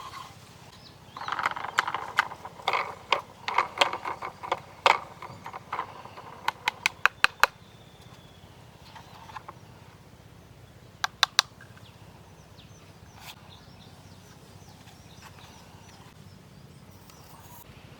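Handling noises from unboxing a die-cast toy dump truck: rustling and knocking of packaging and the model, then a quick run of about six sharp clicks and, a few seconds later, three more.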